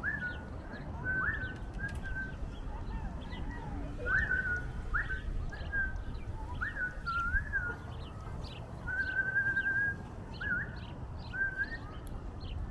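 A series of short, clear whistled notes, several sliding up and then held briefly, with one longer held note about nine seconds in, over a steady low background rumble.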